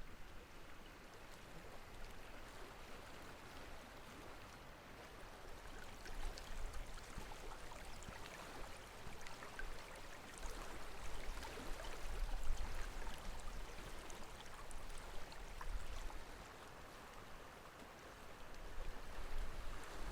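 Faint, gentle water sounds, with a low wind rumble on the microphone that comes and goes.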